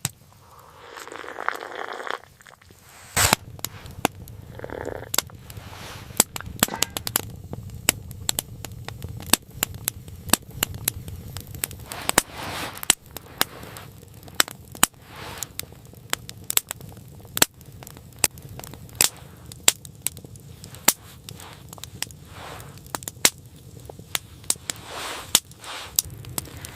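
Wood fire crackling, with irregular sharp pops over a low steady rumble that start about three seconds in.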